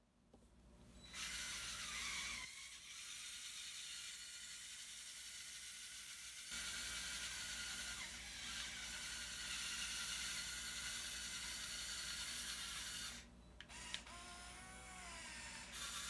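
Small electric motors and plastic gears of a motorised Lego Technic tracked skid steer whirring as it drives on its tracks, starting about a second in. Near the end the whir drops briefly, a click sounds, a wavering whine rises and falls, and then the whir picks up again.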